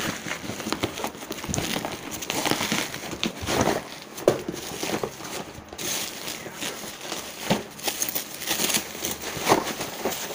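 Plastic bubble wrap being handled and unwrapped by hand, a continuous irregular crinkling and rustling with many small sharp crackles.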